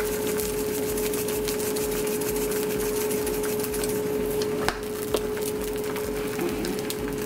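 Eggs frying in olive oil in a nonstick pan, sizzling and crackling steadily over a steady hum, with a single sharp click about four and a half seconds in.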